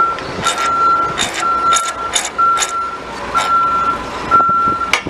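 Vehicle backup alarm beeping steadily, one long beep about every second, with a few short clicks and rustles mixed in.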